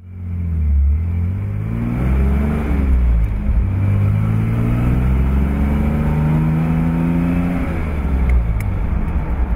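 1972 Intermeccanica Indra Spider's engine pulling the car through the gears. The note rises, drops at a gear change about three seconds in, then climbs steadily for about five seconds before falling again near the end.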